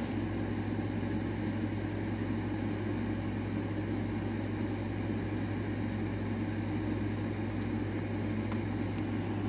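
A steady low hum with no other events.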